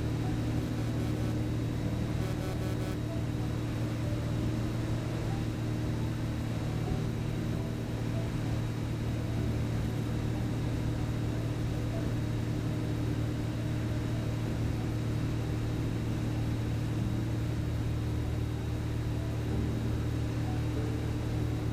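Light aircraft's piston engine and propeller droning steadily, heard inside the cockpit.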